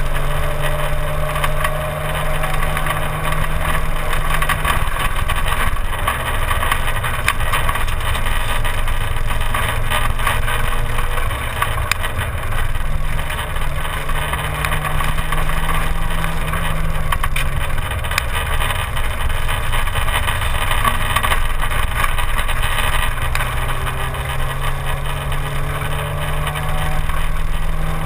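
Simca 1000 rally car's rear-mounted four-cylinder engine driven hard on a rally special stage. The engine note climbs, drops sharply about five seconds in and again around seventeen seconds, then climbs again, as the driver shifts gears and lifts off for bends, with steady road and wind noise underneath.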